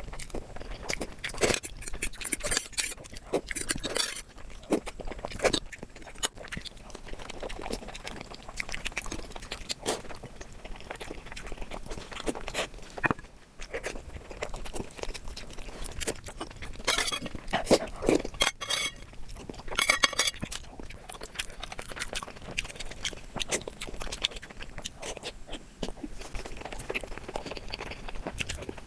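Close-miked eating: chewing and crunching of food, with frequent clicks and clinks of utensils against dishes.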